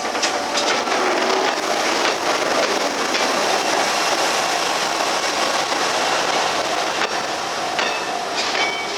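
Multiple tie tamper, a rail track maintenance machine, rolling over a level crossing: a steady rail-vehicle rumble and clatter with scattered sharp clicks, easing a little near the end.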